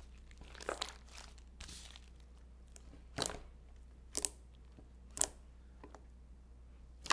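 Compound Kings powder slime being stretched, pulled apart and pressed by hand, giving short sticky crackles and pops about once a second over a steady low hum.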